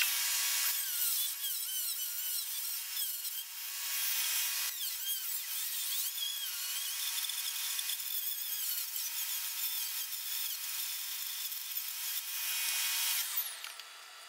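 High-speed handheld rotary tool running under load, its high whine wavering up and down in pitch as it grinds or cuts. It stops about 13 seconds in.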